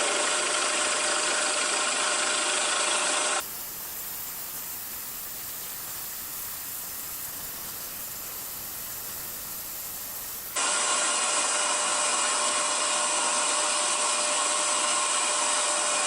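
Hegner scroll saw running steadily, cutting wood with a fine number 2 blade. About three seconds in it drops to a quieter even hiss for some seven seconds, then the saw sound returns.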